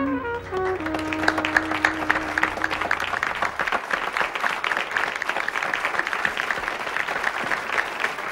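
Applause from a bar audience, starting about a second in and carrying on steadily, as the band's last few falling notes of a slow jazz song die away.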